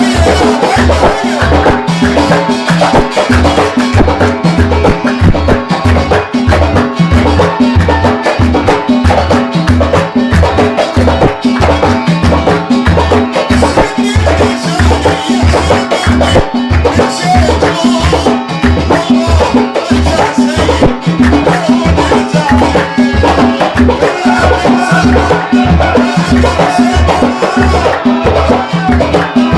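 Loud khabeeti folk-band music with a steady beat of deep drum thumps about twice a second, with lighter percussion and a melody over it.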